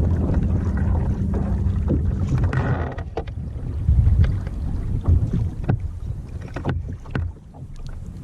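Low steady rumble, typical of wind on the microphone, for about the first three seconds, then a run of separate knocks and clicks of gear being handled in a kayak, loudest about four and five seconds in.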